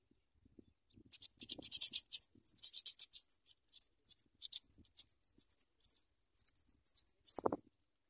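African pipit nestlings begging as an adult comes to the nest with food: a dense run of rapid, high-pitched chirps starting about a second in and stopping just before the end. A brief low thump comes near the end.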